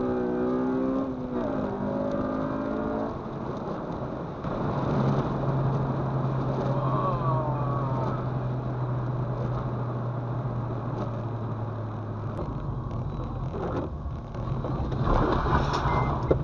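2006 Honda Civic Si's four-cylinder engine running, with tyre noise from the wet road, heard from inside the cabin. A steady low engine drone holds through the middle, and the sound grows louder about a second before the end.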